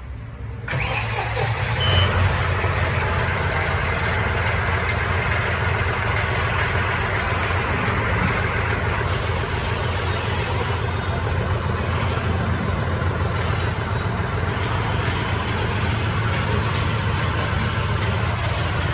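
John Deere 5405 CRDi tractor's common-rail diesel engine starting up about a second in, briefly louder, then running steadily.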